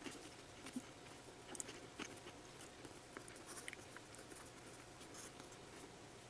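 Faint scratching and light ticks of a red Prismacolor Col-Erase pencil sketching on mixed-media sketchbook paper, with scattered small taps.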